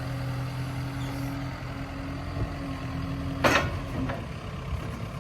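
John Deere 310K backhoe loader's diesel engine idling steadily, with a short sharp noise about three and a half seconds in, after which the engine's hum shifts a little.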